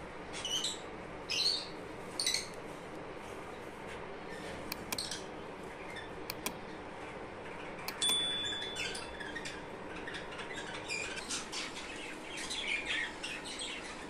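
Small cage birds chirping in short, high calls: three single chirps in the first few seconds and a quick run of chirps near the end. About halfway through, a sharp click and a brief steady high tone.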